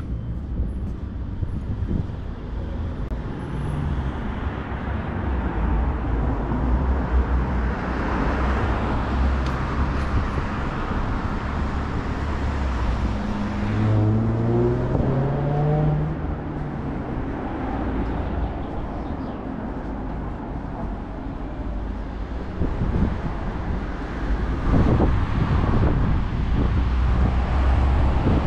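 City street traffic: cars passing by in a steady rumble. About halfway through, one vehicle's engine rises in pitch as it speeds up.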